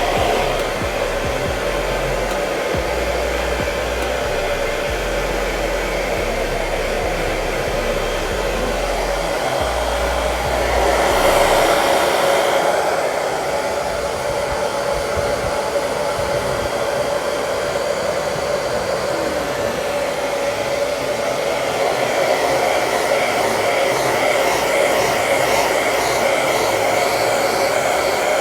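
Hair dryer blowing steadily, growing louder for a couple of seconds about eleven seconds in.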